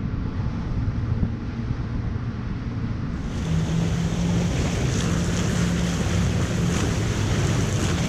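Boat running fast on open sea: the drone of triple 300 hp Mercury outboards under the rush of water and spray, with wind on the microphone. About three seconds in, the sound turns brighter and a steady engine hum comes through.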